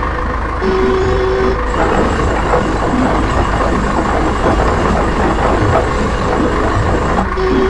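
Heavy construction machinery running with a steady, loud engine rumble and mechanical clatter. A steady tone sounds for about a second near the start and again just before the end.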